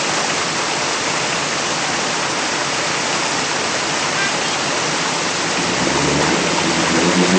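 Fast muddy floodwater rushing over rocks, a steady loud wash of noise. Near the end a 4x4's engine comes up under it as the vehicle works through the water.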